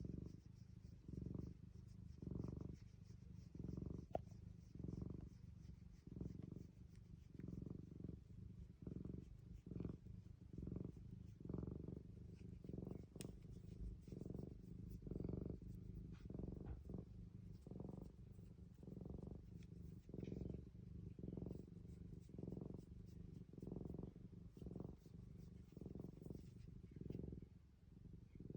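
Domestic cat purring close up, a steady low rumble that swells and fades with each breath in and out.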